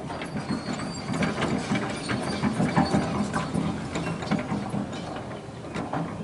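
Radio-controlled model excavator's small electric gear motors whirring, with a continual rapid clicking of gears.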